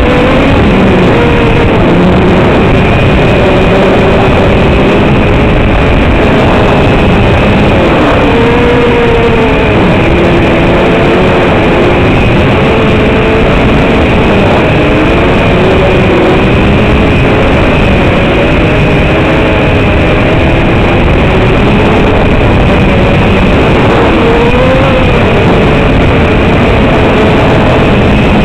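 The brushless motors and propellers of an LKTR 120 FPV racing quadcopter, heard close from on board: a loud, continuous whine whose pitch keeps rising and falling with the throttle, over a steady hiss.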